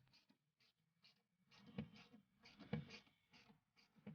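Faint scraping and rubbing with a couple of soft knocks as a car's rear seat is handled and folded down, otherwise near silence.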